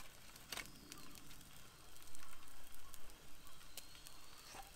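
Faint crackling and sizzling from the cooking fire and grill, with a few scattered sharp clicks.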